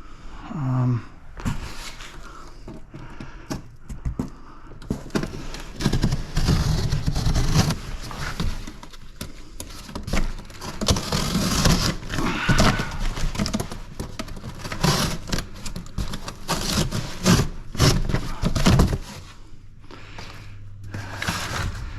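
Scrap metal from an air filter unit being pulled apart and handled: irregular clattering, scraping and sharp knocks. Near the end the clatter stops and a steady low hum is left.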